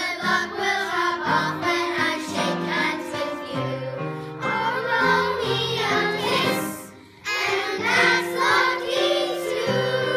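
Children's chorus singing a show tune over instrumental accompaniment; the music briefly drops out about seven seconds in, then the next section starts.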